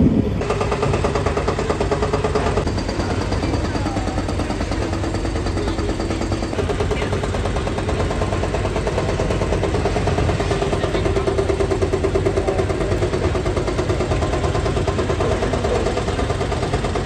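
A large engine running steadily: a dense, fast pulsing with a droning tone that shifts slightly in pitch.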